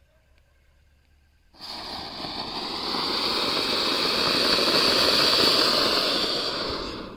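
Ashoka anar (flower-pot fountain firework) bursting into flame about one and a half seconds in, spraying sparks with a loud rushing hiss. The hiss swells to a peak and dies away just before the end as the fountain burns out.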